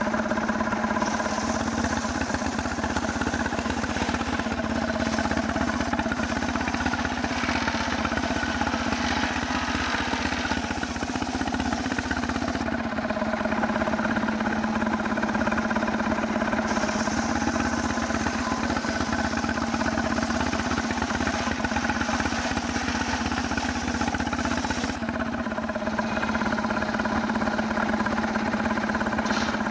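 Stihl chainsaw running steadily at an even pitch, as when milling a log of very hard casuarina wood. The higher hiss of the cut fades for a few seconds about 13 seconds in and again near the end.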